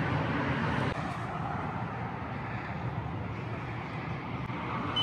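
Steady outdoor street ambience: an even low hum and hiss with no distinct events, ending with a short high electronic beep.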